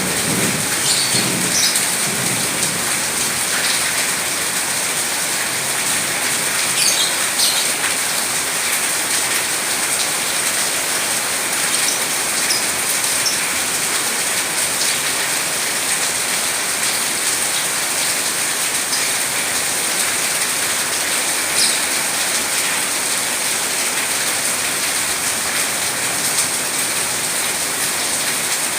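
Steady rain, with a low thunder rumble dying away in the first two seconds and a few brief high bird chirps scattered through.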